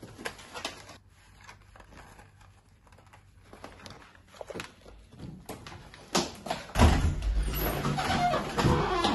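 Scattered clicks and knocks of movement, then from about six seconds a louder run of knocks and rumble as a door is handled and opened.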